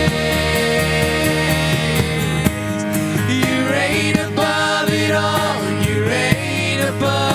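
Worship band playing between sung lines, with a steady drum beat under held chords. A melody line bends up and down from about three seconds in.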